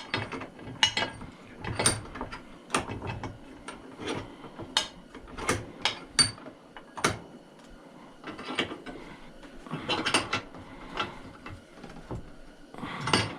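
Irregular metal clicks, taps and light knocks of hand tools working on a chopsaw's parts, with a couple of brief scraping rattles, the second near the end.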